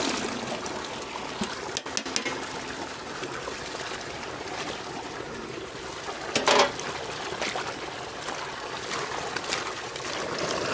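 Water pouring steadily from a pipe outlet and splashing into and around a metal pot as okra is washed by hand in it, with a brief louder noise about six and a half seconds in.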